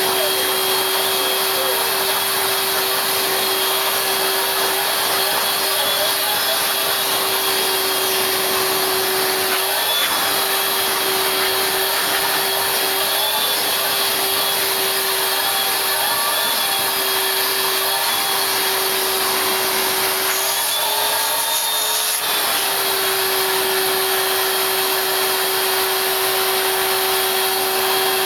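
Vacuum cleaner running steadily with a high motor whine over a rushing air noise. Its pitch rises and wavers for a couple of seconds about twenty seconds in, then settles back.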